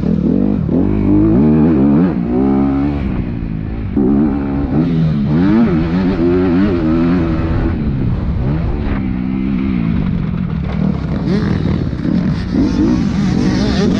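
Motocross bike engine heard from on board, revving up and falling back again and again as the rider accelerates and shifts through gears.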